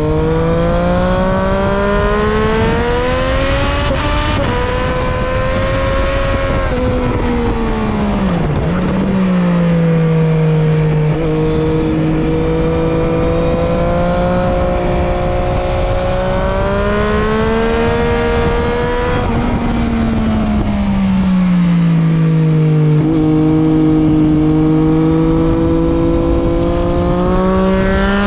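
Triumph 675 inline-three motorcycle engine at racing revs. Its pitch climbs under acceleration and steps down at each upshift, and it twice falls away and swings back up as the bike slows and picks up again.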